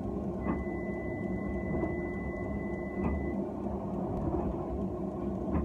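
Steady hum inside the cab of a Nottingham Express Transit tram standing at a platform. A steady high-pitched beep sounds from about half a second in and lasts about three seconds.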